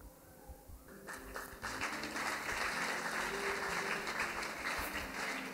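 Congregation applauding. The clapping starts about a second in and keeps up steadily.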